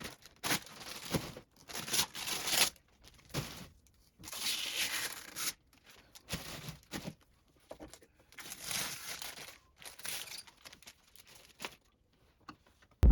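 Packaging being torn open and crinkled by hand: a series of short, irregular rustling and tearing bursts with brief pauses between them.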